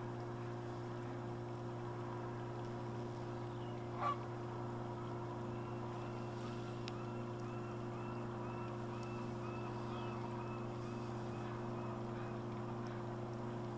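Geese honking in a steady run of calls, about two a second, over a steady low hum. There is one short, louder sound about four seconds in.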